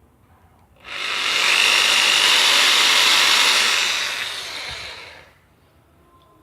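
Bosch GSB 13 RE corded impact drill run on its trigger for about four seconds: it spins up about a second in with a high whine that rises in pitch, holds steady, then winds down and stops near the end.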